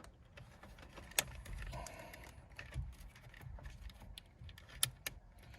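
A few faint, sharp clicks and light handling noise of plastic parts as a wiring connector behind the steering wheel is worked loose. There is one click about a second in and a couple more near the end.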